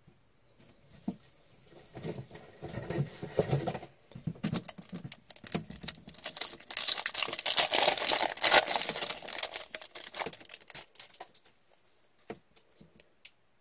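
Foil wrapper of a hockey card pack crinkling and tearing open in gloved hands, with the cards rustling out of it. The crackle builds and is loudest a little past halfway, then dies away.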